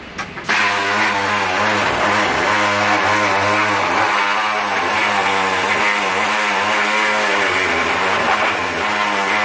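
Pneumatic air tool running under load on a car's quarter panel, starting about half a second in, its pitch wavering up and down as it works the metal.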